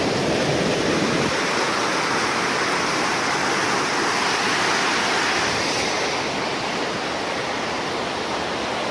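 Fast mountain river, the Fırtına stream running high with snowmelt, rushing loudly and steadily.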